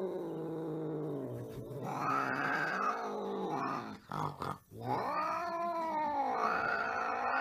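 Scottish Fold cat growling and yowling in long, wavering howls, breaking off briefly about halfway through and then starting again: an angry cat's threat call.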